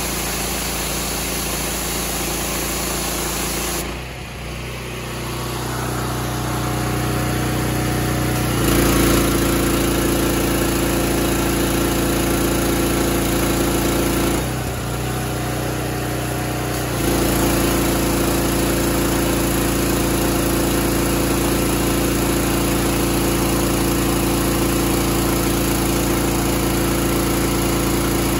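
Honda GX390 single-cylinder engine running a direct-drive pressure washer. Its note and loudness shift several times: it dips about four seconds in, comes back louder near nine seconds, dips again around fourteen seconds and rises once more near seventeen, as the pump's load changes.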